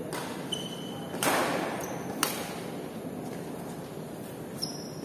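Badminton rally: two sharp racket strikes on the shuttlecock about a second apart, the first louder and echoing in the hall. Short high squeaks of shoes on the court floor come between them.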